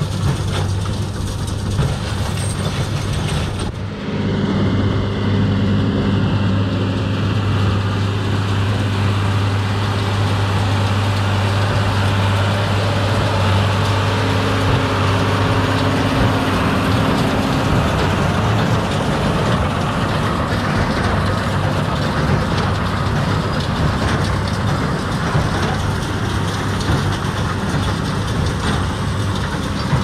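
Six-cylinder 120 hp tractor engine running steadily under load while pulling a New Holland BB960 large square baler, with the baler's machinery working; a loud, even drone with a low hum. The sound changes abruptly about four seconds in.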